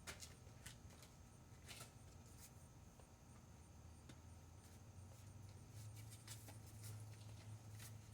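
Near silence: a faint low steady hum with a few faint scattered clicks.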